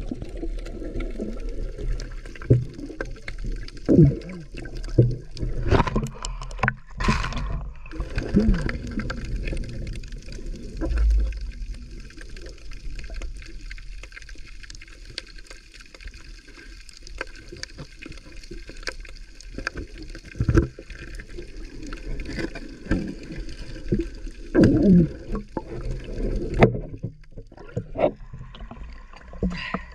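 Muffled underwater sound from a camera held below the surface: water sloshing and gurgling, with irregular knocks and bumps.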